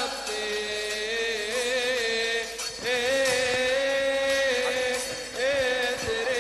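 Liturgical chant in the Coptic rite, a melodic line sung in long held notes that waver and bend in ornaments, pausing briefly about two and a half seconds and five seconds in.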